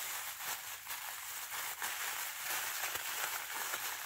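Thin plastic grocery bag with stuffing inside crinkling and rustling as it is folded and pressed flat by hand, an irregular crinkle with short sharper crackles.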